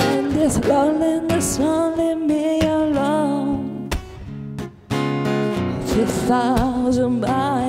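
Live music: guitar under a wordless melody line that slides and wavers in pitch, with a brief drop in level just before the midpoint.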